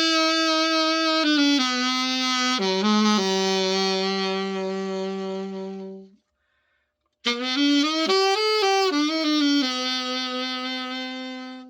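Yamaha YAS-62S alto saxophone played solo after an overhaul: a slow line of long held notes in two phrases, with a clean break of about a second between them.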